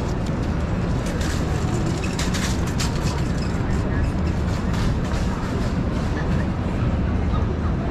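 A heavy vehicle rumbling past on a city street, with a few sharp rattling clacks partway through.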